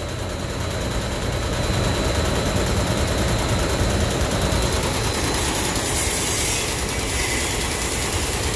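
Cooling tower's centrifugal blower fans running, with a steady low rumble from the shaking unit. The shake points to more than worn shaft bearings: out-of-balance blower wheels.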